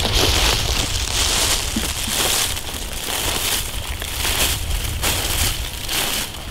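Footsteps crunching through dry fallen leaves on the forest floor, a step roughly every two-thirds of a second.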